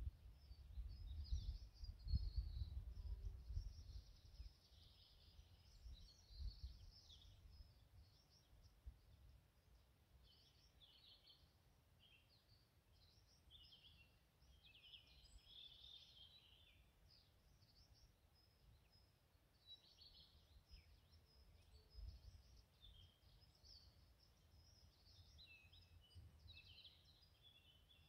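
Faint songbird chorus: several birds singing and calling in short chirps and trills throughout. A low rumble sits under them in the first few seconds.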